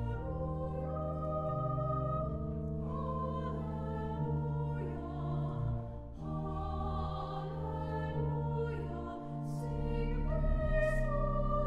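Mixed chamber choir singing slow held chords with keyboard accompaniment. The chords change every second or two, with a couple of sharp sibilant consonants near the end.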